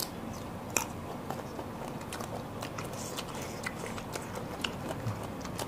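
Crunchy biting and chewing of unripe green mango slices: scattered crisp crunches, the loudest about a second in.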